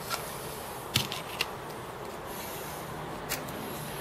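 A few light clicks over a steady hiss as an earthed screwdriver blade is worked under the anode cap of a Commodore 1084S monitor's picture tube. One sharper click comes about a second in. There is no loud discharge crack: the tube holds little or no charge.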